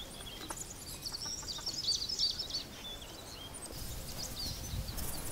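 Small birds chirping in quick, high twittering calls. From a little past halfway, a soft shaking rustle joins them as flour is sifted through a metal sieve.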